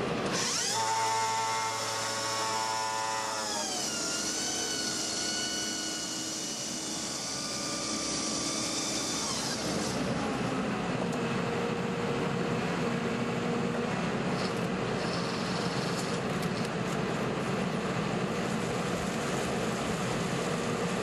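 CRS-V sonic drill head vibrating the casing, a loud pitched whine that shifts in pitch, to settle the soil against the heat loop tubing. After about ten seconds the whine cuts off, leaving the rig's engine running steadily.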